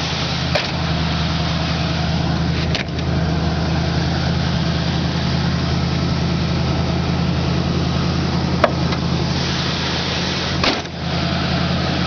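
Old Ford F-150 engine idling steadily just after a cold start, having been started by jumping the starter solenoid with a screwdriver. A few sharp clicks and knocks sound over the idle.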